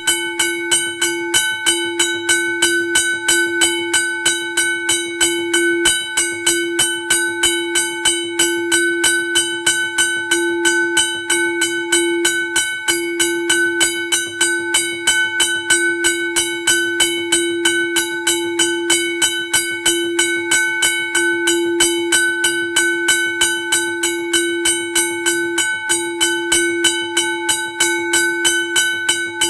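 Australian level crossing bell ringing continuously, struck about twice a second over a sustained ringing tone.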